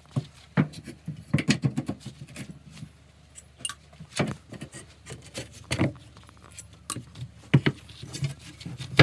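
Hammer knocking on a reclaimed pallet board on a wooden workbench: irregular sharp knocks with metallic clinks, some single and some in quick clusters.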